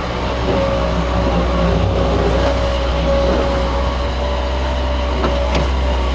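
Excavator engine running steadily: a constant low drone with a steady whine above it, and a few knocks near the end.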